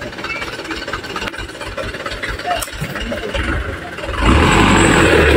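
Light truck's engine running at low revs, then revving hard about four seconds in as the truck pulls on a muddy, rutted dirt track.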